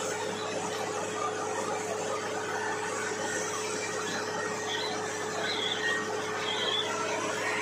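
Borewell drilling rig running steadily: a constant machine hum under even mechanical noise, with a few short high squeals in the second half.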